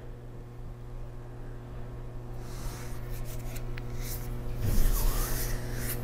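Steady electrical hum, with rustling and rubbing from about two and a half seconds in as a hand moves off the laptop, and a soft bump near the five-second mark.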